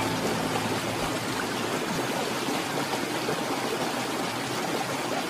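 Small waterfall splashing over rocks: a steady, even rush of falling water.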